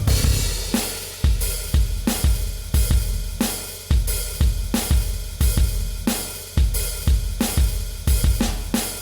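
Backing music with a drum kit keeping a steady beat: bass drum, snare and cymbals, about two hits a second.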